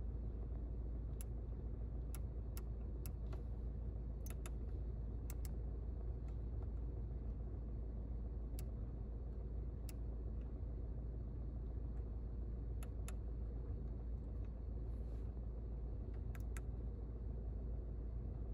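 Steady low hum inside the cabin of an Audi Q3. About fifteen sharp, irregular clicks sound over it from the MMI control knob and buttons as the infotainment menus are stepped through.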